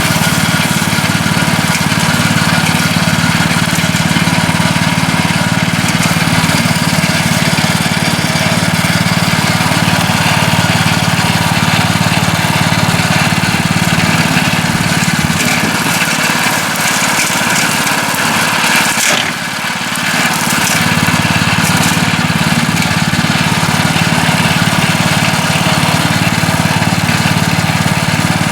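Cordless brush cutter with a steel blade running steadily while cutting grass. The sound dips briefly about two-thirds of the way through.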